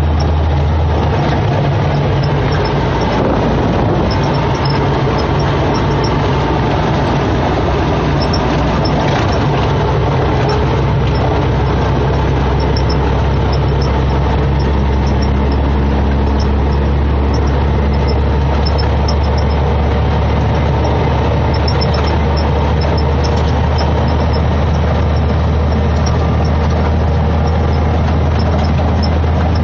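Semi truck's diesel engine running steadily while pulling a heavily loaded milk tanker, a constant low drone with road noise, heard from inside the cab.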